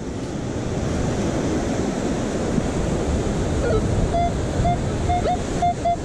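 Ocean surf and wind on the microphone, steady throughout. In the last couple of seconds a metal detector gives a string of short, same-pitched beeps, about five of them.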